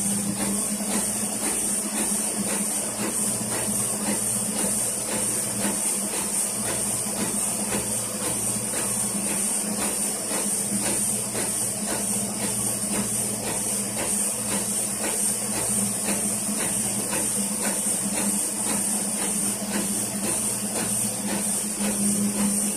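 Autoprint sheet-fed offset printing press running steadily: a constant hum and hiss with regular, even clicking of the machine.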